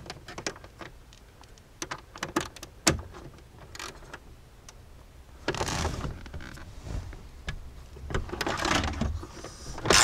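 Loosening a 13 mm dashboard mounting nut: scattered metallic clicks and taps, then two short bursts of a power tool, each about a second long, about halfway through and near the end.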